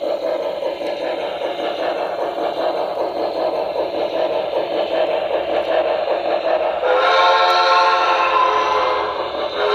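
Onboard sound system of a Broadway Limited Paragon 2 HO scale Pennsylvania Railroad 2-10-0 Decapod model steam locomotive, playing steady steam exhaust chuffing through its small speaker. About seven seconds in, a long multi-tone steam whistle blows for over two seconds, then starts again at the very end.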